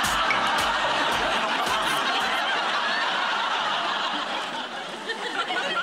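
Studio audience laughing, with the beat of a pop song still running under it for the first two seconds or so before it stops.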